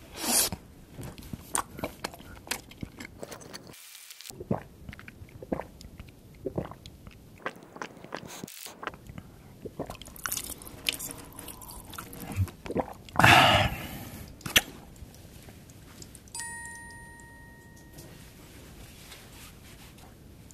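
Close-miked drinking from a large plastic syringe: liquid squirted into the mouth, with wet mouth clicks, slurps and gulps, and one louder rush of liquid about two-thirds of the way through. A short steady beep sounds near the end.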